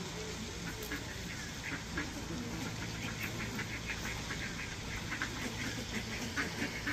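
Mallard ducks quacking in many short, quick calls, over a steady low hum.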